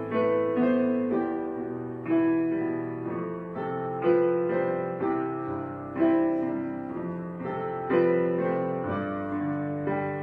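Background piano music: slow, gentle chords, a new chord struck about every two seconds and left to fade.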